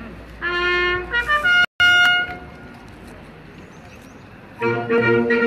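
Brass band playing: a few held brass notes near the start, broken by a brief dropout, then after a lull of about two seconds the full band comes in near the end with shifting notes.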